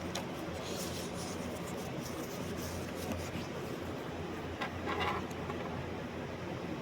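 Steady low hum of room or equipment noise, with brief rustling, scraping sounds about a second in and again around five seconds in.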